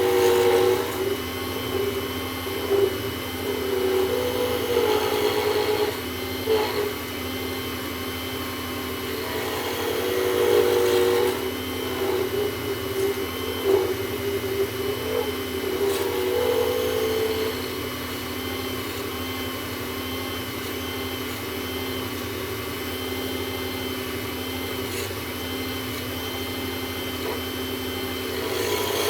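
WEN benchtop lathe running steadily while a round carbide tool cuts an acrylic pen blank, roughing it toward round. The cutting noise comes and goes in passes over the steady motor hum and eases off in the last third, leaving mostly the motor.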